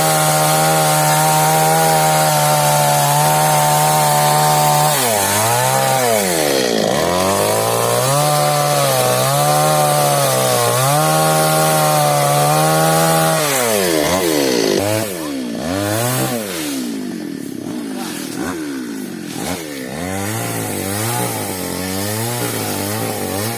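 Stihl chainsaw cutting mahogany wood. It runs at a steady high speed for about five seconds, then its revs repeatedly sag and recover under the load. From about fifteen seconds in it is quieter and is revved up and down in quick blips.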